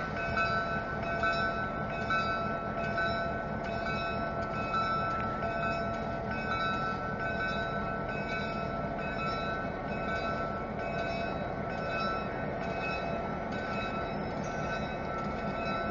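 GP-9 diesel locomotive with its 16-cylinder EMD 567 engine idling as it sits on a turning turntable: a steady rumble with a high whine that pulses on and off roughly once a second.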